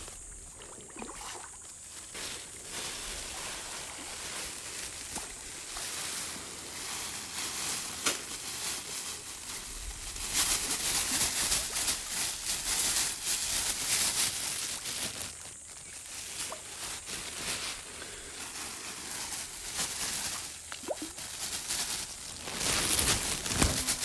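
Tilapia splashing and sloshing at the surface of a fish pond, with small crackly water noises that grow louder for several seconds about ten seconds in and again near the end.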